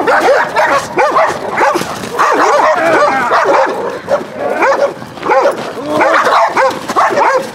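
East European Shepherd dogs barking and yelping, with short high calls that rise and fall in pitch, several a second and without a pause.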